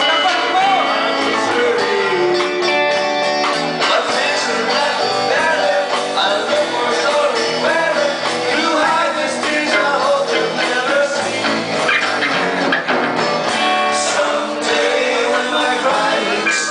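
A band playing live, with male voices singing into microphones over electric guitar.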